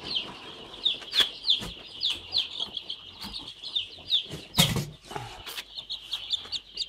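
Young chicks peeping: a steady run of short, high, falling chirps, two or three a second. A sharp knock sounds a little over halfway through, with a smaller one about a second in.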